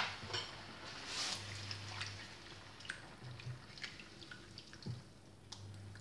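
Silicone spatula stirring a thin sauce in a nonstick frying pan: soft sloshing with scattered small liquid ticks and drips. A faint low hum comes and goes about three times.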